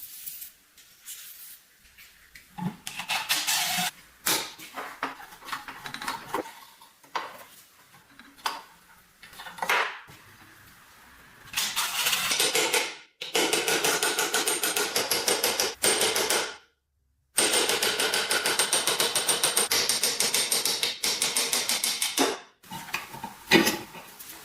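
Metal parts knocked and clinked as they are handled, then a fast, even rattling-rasping run of a tool working metal. It stops dead twice, the second time for good a couple of seconds before the end.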